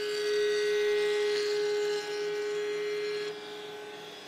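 Router in a router table running at speed with a steady high-pitched whine as a panel edge is fed past a bearing-guided trim bit. The sound drops a little about two seconds in and again near the end.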